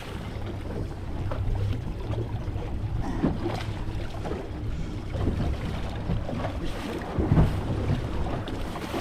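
Wind buffeting the microphone on an open fishing boat at sea: a steady low rumble, with a few faint knocks.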